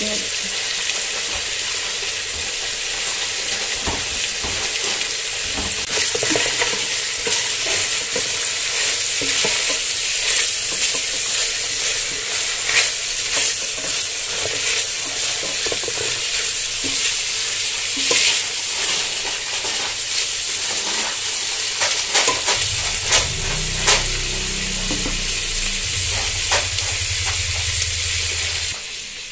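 Sliced hot dogs and shredded chicken sizzling as they fry in an aluminium pot, with a spatula stirring and scraping through them. The sizzle runs steadily, and the short scrapes of the spatula come often from about six seconds in.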